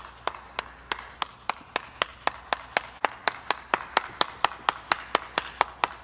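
One person clapping their hands steadily, slowly at first and then a little faster, at about three to four claps a second.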